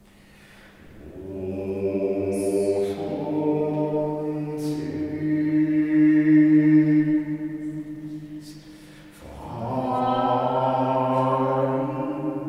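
Unaccompanied two-voice singing in long, held chant-like tones, a low male voice and a higher female voice, in a stone-walled hall. The singing starts about a second in and swells to its loudest around the middle. It breaks off briefly near the three-quarter mark, then resumes.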